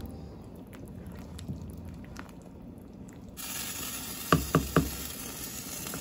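Wooden spoon stirring a pot of simmering tortellini soup: a wet, squelching stir with a hiss. About four seconds in come three quick knocks, the loudest sounds.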